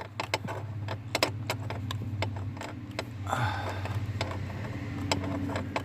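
Scattered clicks and light rattles of metal and plastic parts as a stuck ignition switch is worked loose from a car's steering column, over a steady low hum.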